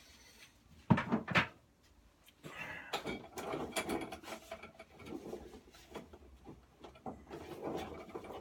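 Metal mower handlebar parts being handled and worked on: two sharp knocks about a second in, then several seconds of irregular clinking and scraping.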